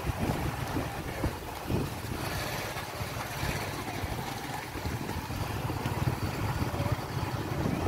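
Motorcycle engine running steadily under road noise, with wind buffeting the microphone on the move.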